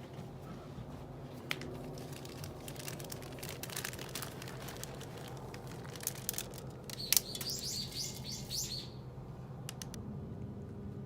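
A bird chirping: a quick run of about seven short, high notes lasting under two seconds, over a steady low hum. Scattered clicks and rustling come before it, and one sharp click sounds just before the chirps.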